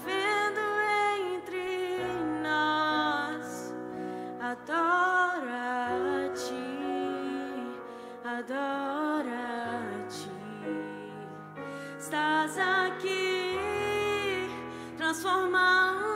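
A woman sings a slow worship song into a microphone, accompanied by a band led by keyboard. Held low notes underneath change every couple of seconds.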